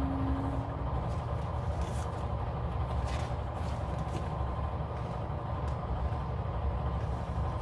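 Steady low background rumble, with a few faint rustles of sticker sheets being handled.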